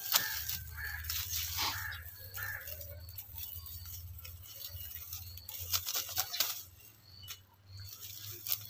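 Dry harvested garlic stalks and straw rustling and crackling as they are pulled apart by hand, in a burst at the start and another around six seconds in, over a steady low hum.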